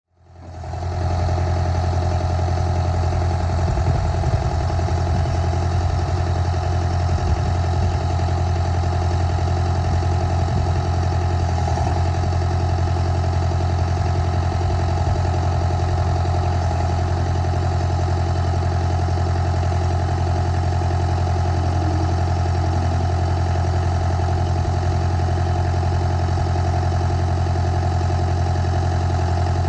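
Waldon loader backhoe's engine idling steadily at an even speed.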